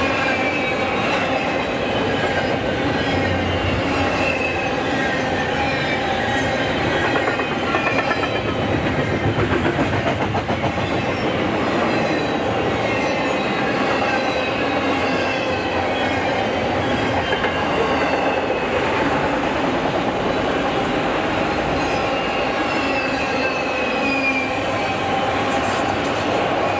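A train rolling past on steel rails: a steady rumble of wheels on track, with high, wavering wheel squeal coming and going over it.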